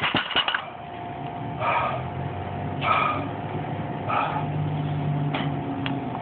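A man breathing out hard three times, about a second apart, while exerting himself during a workout, over a steady background hum. A few sharp clicks come right at the start.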